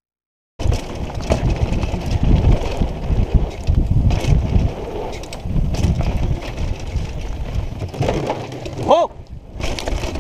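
Mountain bike ridden fast down a dirt trail, heard from a camera on the rider: a continuous rumble and rattle of tyres over dirt and roots, starting about half a second in. About nine seconds in there is a brief squeal, then a short quieter moment.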